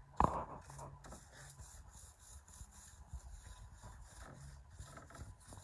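Stiff brush scraping and rubbing over wooden ceiling slats in repeated strokes, with one sharp knock about a quarter second in.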